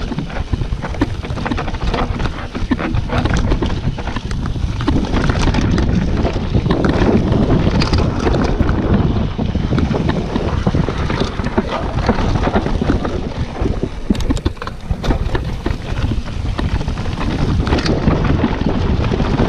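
Wind rushing over the camera microphone and the rattle of a mountain bike riding fast down a rough dirt trail, with many small knocks and clatters from the tyres and bike over stones and roots.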